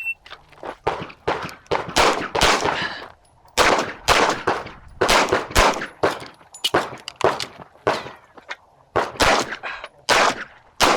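A string of 9mm pistol shots from a CZ SP-01, fired rapidly in pairs and short runs with brief pauses between targets, each shot sharp with a short echo, about twenty in all.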